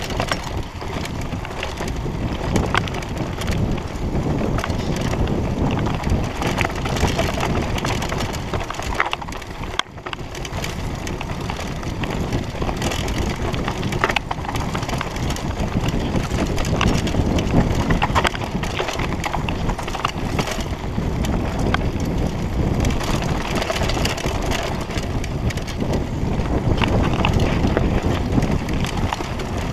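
Mountain bike riding down a dirt singletrack: tyres crunching over dirt and dry brush, the bike rattling and clicking over bumps, and wind buffeting the microphone. The noise briefly drops away about ten seconds in.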